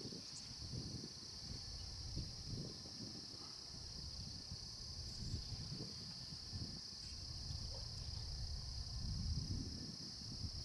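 Steady high-pitched insect chorus from the marsh, with irregular low rumbling noise underneath.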